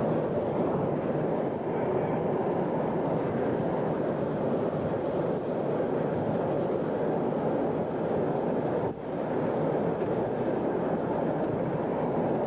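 Steady rushing noise, even and unbroken, with a brief dip about nine seconds in.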